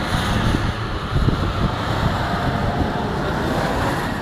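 A car engine running hard as the car drifts on packed snow, its driven wheels spinning and throwing up snow, with a steady dense rumble throughout.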